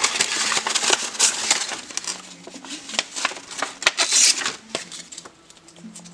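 Sandpaper being pulled from its box and handled: a dense crinkling and scraping with many sharp ticks, which eases off about four and a half seconds in.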